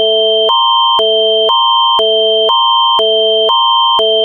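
Canadian Alert Ready emergency attention signal: a steady high tone over two lower chords that swap back and forth every half second, a loud electronic warble that introduces an emergency alert message.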